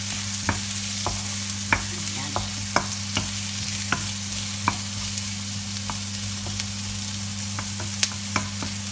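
Diced red onions and crushed garlic sizzling in oil in a nonstick wok, stirred with a wooden spatula that knocks sharply against the pan every second or so. A steady low hum runs underneath.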